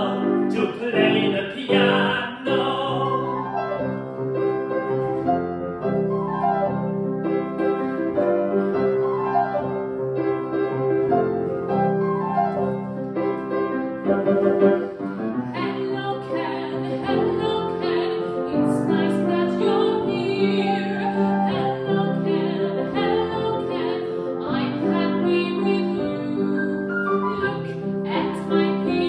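Operatic singing of a children's song by a man's and a woman's voice, with grand piano accompaniment.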